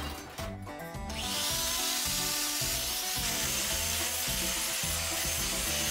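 Handheld power tool spinning up about a second in and then cutting steel flat bar steadily, a harsh, even noise. Background music with a steady beat runs underneath.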